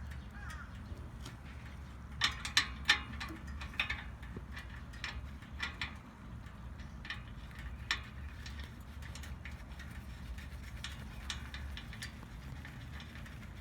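Irregular metallic clicks and taps of a wrench as the oil drain plug is threaded back in and tightened, over a steady low hum.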